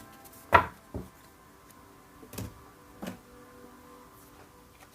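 A few short knocks and handling sounds, the first one loud, over faint soft background music.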